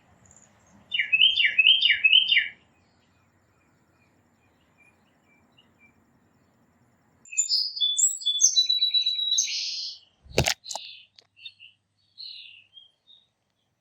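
Songbirds singing: a whistled phrase of four slurred notes, then a longer, more jumbled song with a trill and a buzzy end, followed by scattered short chirps. A single sharp knock comes about ten seconds in.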